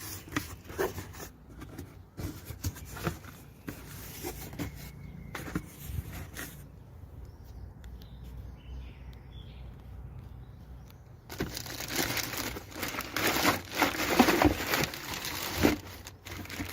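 Clicks and rustling of something being handled, quieter for a few seconds in the middle, then loud, sustained crinkling and crackling from about eleven seconds in.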